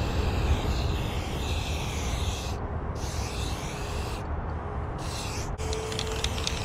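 Aerosol spray-paint can hissing in three bursts: a long one of about two and a half seconds, then a shorter one, then a brief one, each cut off sharply as the nozzle is released.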